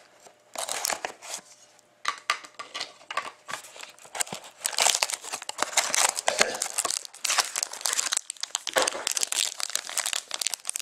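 Cellophane shrink-wrap crinkling and tearing as a sealed trading-card box is cut open and unwrapped, in irregular crackles with a short lull about two seconds in. Near the end a shiny card-pack wrapper is torn open.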